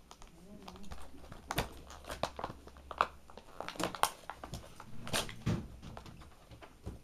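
Plastic and cardboard toy packaging being handled while twist ties are undone: irregular crinkling rustles and sharp clicks, the loudest about three and four seconds in.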